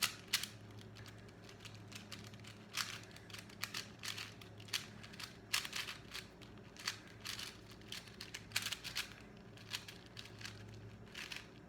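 A 4x4 Rubik's cube being scrambled by hand: its plastic layers turning with quick, irregular clicks and clacks, several a second.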